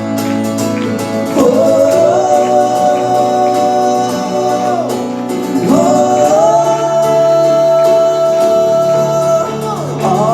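Live gospel-style worship song with band accompaniment, its melody carried by two long held notes, each sliding into and out of its pitch.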